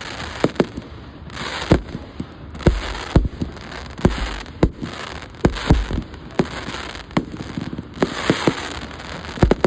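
Fireworks display going off: an irregular run of sharp bangs, about sixteen in ten seconds and sometimes two in quick succession, over a steady noisy background.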